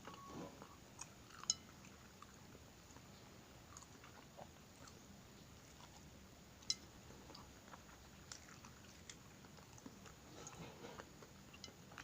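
Quiet, close-up chewing with small crunchy bites, heard as scattered soft crackles and clicks. Two sharper clicks stand out, one about a second and a half in and one near seven seconds.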